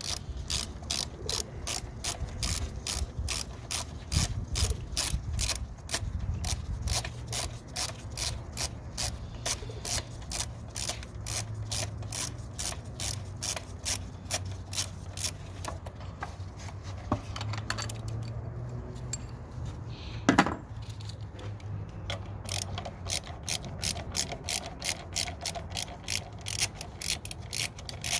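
Hand ratchet with a 10 mm socket clicking steadily, about three clicks a second, as airbox bolts are undone. The clicking pauses about eighteen seconds in, with a single louder knock near twenty seconds, then resumes.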